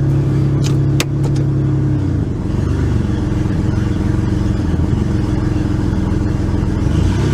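2001 Ford F150's 4.2-litre V6 idling just after start-up, its steady fast idle dropping to a lower, slightly uneven idle about two seconds in; the owner puts a slight miss down to a lean condition. A few sharp clicks about a second in.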